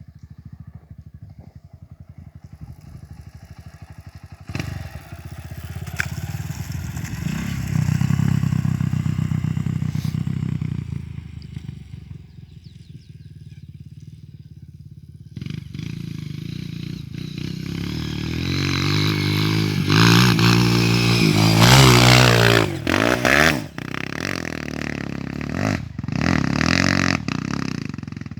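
Off-road motorcycle engine revving hard, growing loud about seven seconds in, easing off, then reaching its loudest about twenty seconds in with the revs rising and falling repeatedly before it drops back near the end.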